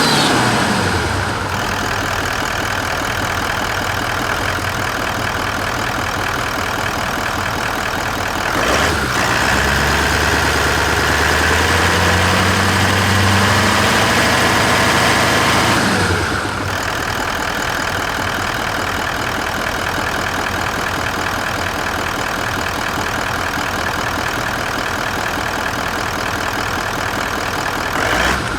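2011 Toyota Land Cruiser 200's 4.5-litre V8 D-4D turbodiesel idling. About nine seconds in it is revved and held, its pitch creeping up for about seven seconds, then it drops back to idle.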